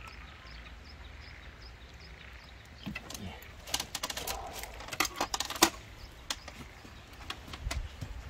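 A quick cluster of light clicks and taps about halfway through, from the landing net's frame and handle being handled and set into its clamp on the platform rail. A low steady hum runs underneath.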